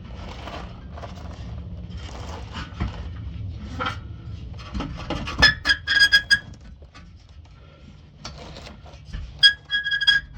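Saw with a metal-cutting blade cutting through a steel exhaust pipe: rasping strokes over a steady rumble. Short high-pitched squeals come where the blade bites, a little past the middle and again near the end.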